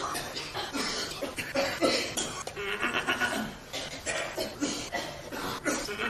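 A rapid string of coughs, one short cough after another with little gap between them.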